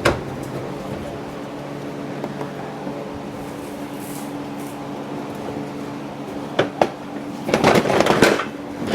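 Steady low hum, then two sharp clicks and about a second of plastic rattling and scraping near the end, as the Jeep's factory light housing is wiggled to free its snag-prone hooks.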